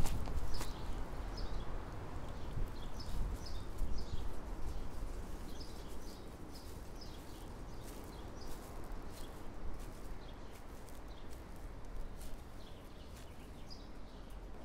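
Outdoor ambience: small birds chirping now and then over a steady low rumble, with a few soft knocks near the start.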